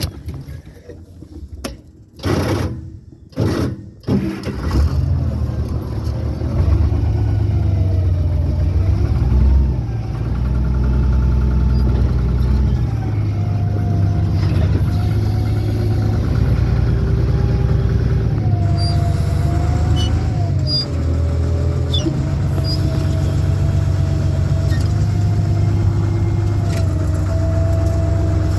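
A few loud short bursts in the first four seconds, then a vehicle engine running steadily under load with a whine that rises and falls in pitch as it pushes the wrecked car up onto its side.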